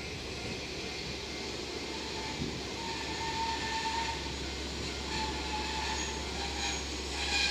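KiHa 40-series diesel railcar train running slowly past, with a steady low rumble of engines and wheels and a faint high squeal that comes and goes from about three seconds in.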